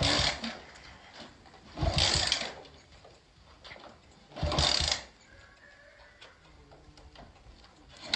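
Honda motorcycle being kick-started three times, about two and a half seconds apart. Each kick gives a short mechanical clatter as the engine turns over but doesn't catch.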